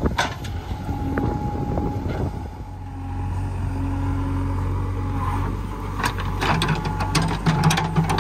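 JCB 3DX backhoe loader's diesel engine running under load while the backhoe arm digs, its revs rising about six seconds in. Sharp clanks and scrapes from the bucket in the soil come near the end.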